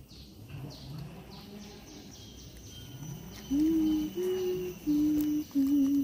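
Humming: about halfway through, four short held notes at slightly different pitches, like a few notes of a tune. Faint bird chirps repeat in the background throughout.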